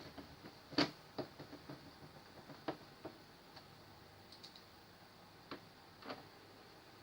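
Irregular light clicks and taps, as of small parts or tools being handled, about eight of them, the loudest just under a second in.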